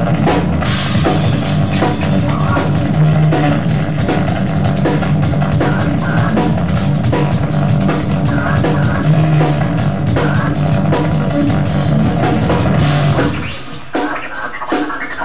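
Live instrumental rock: electric guitar and drum kit playing, with a steady beat of drum hits, until the music thins out and drops in level about 13 seconds in.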